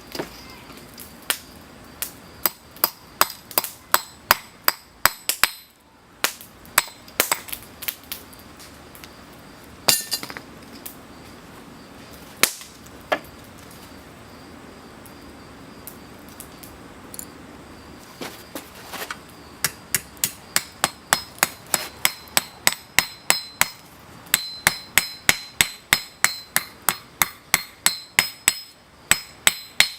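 Hand hammer striking hot steel on an anvil, each blow with a ringing clink. A run of blows in the first several seconds, a few scattered strikes in the middle, then steady hammering at about three blows a second through the last ten seconds.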